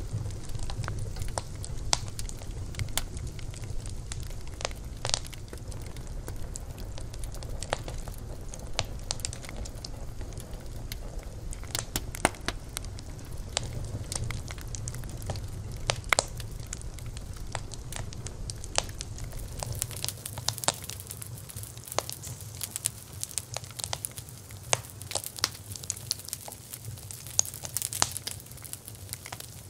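Campfire crackling: burning wood gives irregular sharp pops and snaps over a steady low rumble of the flames.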